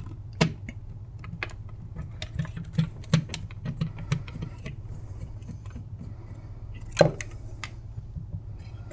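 Scattered light clicks and taps of a screwdriver and plastic parts being handled while a screw is taken out of a microwave's control-panel circuit board, with one sharper click about seven seconds in, over a steady low hum.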